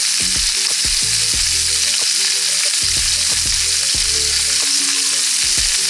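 Chopped peppers sizzling in a hot frying pan, a steady dense frying hiss.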